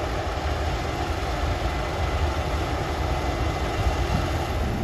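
Case IH Axial-Flow combine harvester running steadily as it cuts wheat, a continuous even engine and machinery rumble.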